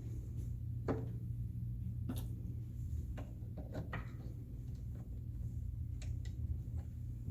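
Hard plastic dollhouse pieces being handled and fitted together: scattered light clicks and knocks over a steady low hum.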